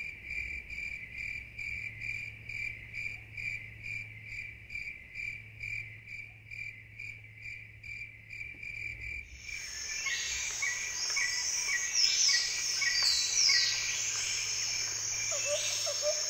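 Insects chirping steadily in a high, even pulse of about two or three chirps a second. About nine seconds in, a dense chorus of whistling, gliding bird and insect calls takes over, as in a tropical forest soundscape, and a lower repeated call joins near the end.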